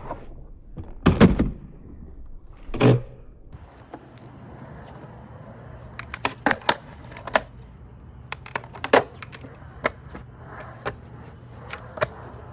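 Skateboard on concrete: two heavy knocks in the first three seconds, then a run of sharp clacks of board and trucks hitting the ground, over a steady low hum that starts about three and a half seconds in.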